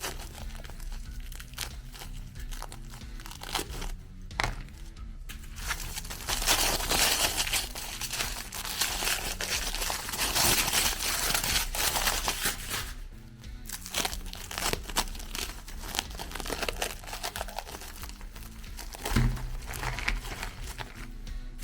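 Meat grinder crushing cookies: a dense crackling and crunching that is heaviest from about six to thirteen seconds in.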